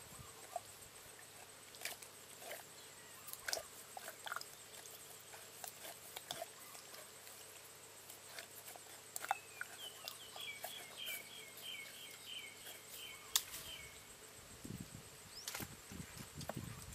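Scattered faint clicks and knocks of a hand and a metal hook probing a muddy burrow hole. Partway through, a bird gives a short trill of about eight quick falling chirps, over a steady thin high insect tone.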